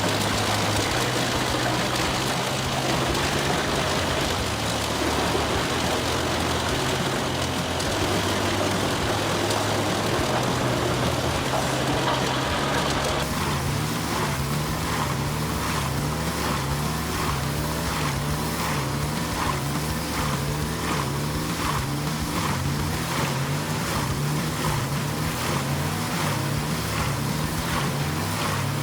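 Wood chipper's engine running steadily at working speed. The sound changes abruptly about thirteen seconds in, after which a wavering low drone with a regular pulse sets in.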